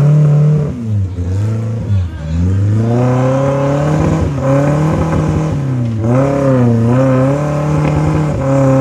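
Suzuki off-road 4x4's engine revving under load as it crawls through a deep muddy rut. The engine speed drops sharply about one and two seconds in, then picks up and holds, and dips once more about six seconds in before recovering.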